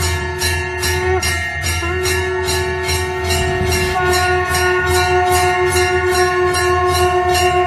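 Devotional ceremony music played through a television's speaker: bells struck in a steady rhythm, about three strokes a second, over long held tones that break off briefly about a second in and then resume.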